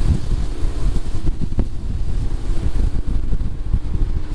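Pickup truck driving through a snow drift on a snowy road in two-wheel drive: a steady, heavy low rumble of engine and tyres, with wind buffeting the microphone.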